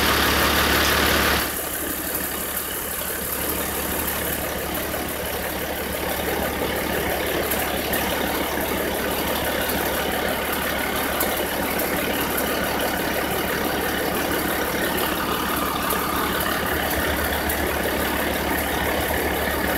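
Engine of a hydraulic boat-trailer rig idling steadily, with a louder rushing noise in the first second and a half.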